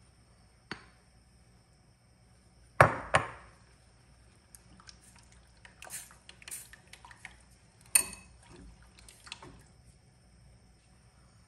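Silicone spatula stirring a thin corn-flour-and-water slurry in a stainless steel saucepan, with sharp knocks and clinks against the pot: a loud double knock about three seconds in, another loud one near eight seconds, and lighter taps between.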